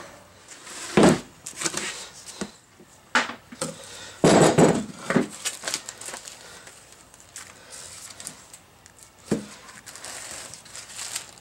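Heavy parts and their packaging being handled during unboxing: a few separate knocks and thumps, with rustling and scraping of packing material. The loudest is a half-second rustle about four seconds in.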